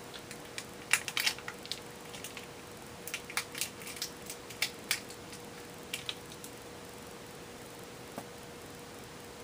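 Light clicks and rustles of small objects being handled, in a run of irregular taps during the first half, then stopping; a faint steady hum sits underneath.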